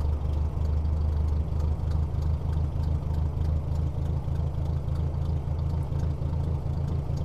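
Ford Workmaster 641 tractor's four-cylinder gasoline engine idling steadily at low throttle just after starting. Its Marvel Schebler carburetor is at the initial settings, idle screw one turn out and main jet two turns out, and it idles nicely on them.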